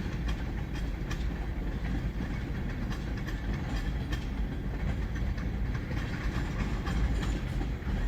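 Freight train cars rolling past, with a steady low rumble and irregular clicks of the wheels over the rail joints.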